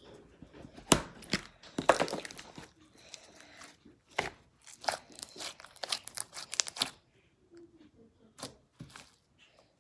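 Purple store-bought slime being squeezed and stretched by hand: a run of sticky pops, clicks and crackles that thins out to a few faint ones after about seven seconds.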